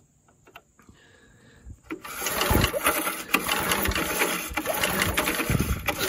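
Recoil starter being pulled, cranking over a 3 hp Briggs & Stratton engine to check it for spark after it was flushed of pond water. The loud, rapid mechanical clatter starts about two seconds in and stops near the end.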